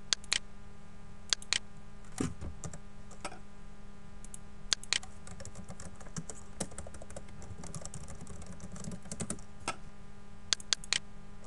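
Typing on a computer keyboard, with a quick run of key presses in the middle. Louder single clicks come a few times at the start and near the end, over a faint steady hum.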